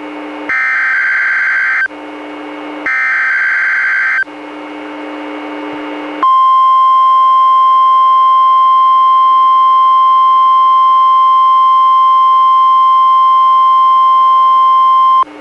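NOAA Weather Radio weekly test alert as received on a weather radio: the last two of the three SAME data bursts of the alert header, each about a second and a half long with a short gap between. About two seconds later comes the steady 1050 Hz warning alarm tone, held for about nine seconds before it cuts off sharply.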